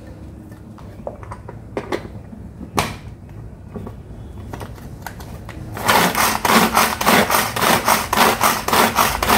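Red amaranth leaves rustling as they are pushed into a hand-operated vegetable chopper, with a few knocks as its lid goes on. About six seconds in, the chopper is worked hard, a loud, even clatter of about four strokes a second as its blades cut through the leaves.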